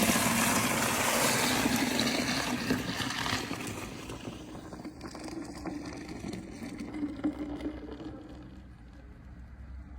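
Suction cleaning machine running with a loud rushing of air and a low motor hum. The rush fades away over the second half.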